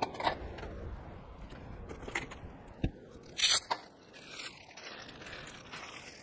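Camp-kitchen handling sounds: a few light knocks and clinks of dishes and utensils set down on a folding table, and a short, louder crinkling rustle about three and a half seconds in as a bunch of fresh coriander is picked up.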